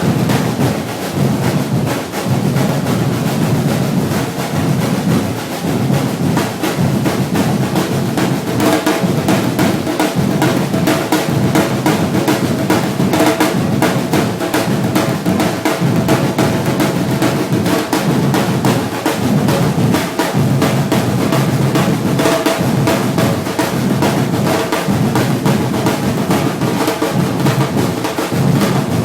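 Brazilian-style batucada drum ensemble playing together in a continuous, steady groove.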